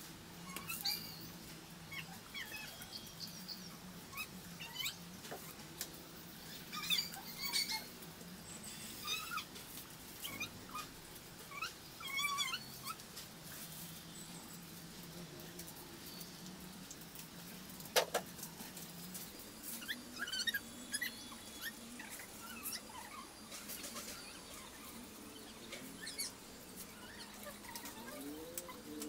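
Dry palm-leaf strips rustling and crackling as they are handled and woven by hand, with a sharp click about two-thirds of the way in. Short high chirping animal calls come and go throughout.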